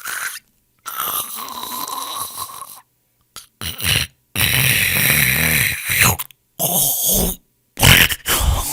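People snoring: a run of about six separate snores, each lasting from half a second to about two seconds, with short dead-silent gaps between them.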